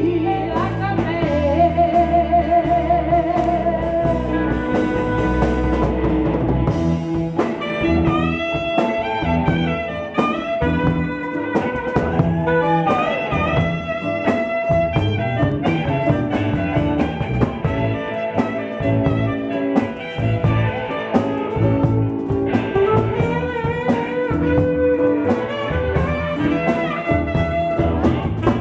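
Live blues band playing: guitar over drum kit and bass, with some singing.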